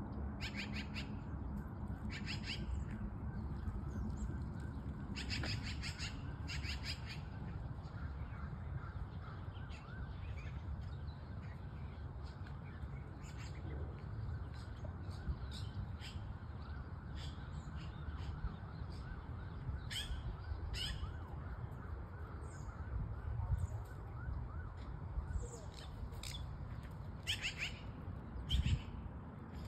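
Birds calling outdoors, short calls repeated every second or two, over a low steady rumble.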